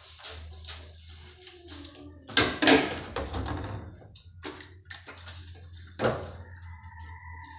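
Dishes being washed by hand at a metal sink: plates rubbed and scrubbed, with irregular clinks and knocks, the loudest clatter about two and a half seconds in and another knock about six seconds in. A faint held tone comes in near the end.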